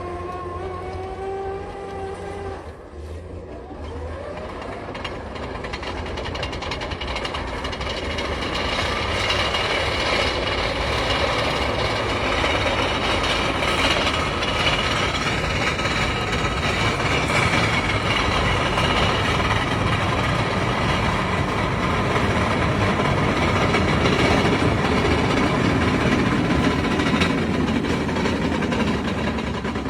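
Heavy machine running hard: an engine revs with a rising pitch, drops away about three seconds in, then a loud rumbling clatter builds over the next few seconds and holds.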